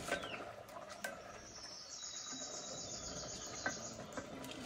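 A wooden ladle stirring food in a clay pot, giving a few sharp clicks, loudest just after the start and about three and a half seconds in. An insect trills high and fast for about two seconds in the middle.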